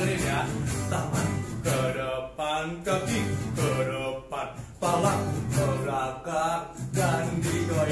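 A children's Sunday-school action song: singing over a backing track with a steady beat.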